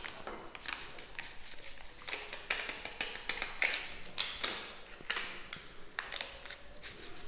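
Foil Maggi masala seasoning sachets crinkling and tapping as they are emptied over a glass bowl: an irregular run of short crackles and taps.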